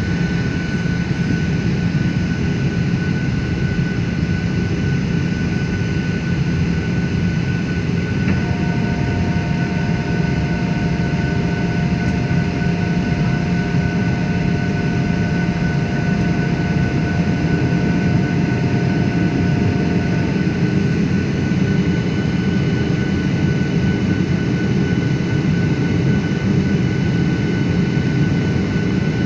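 Steady cabin noise of a jet airliner in flight: the low, even rush of its engines and the airflow, with a thin steady whine above it. About a third of the way in, a pair of higher steady tones joins in, holds for about twelve seconds, then stops.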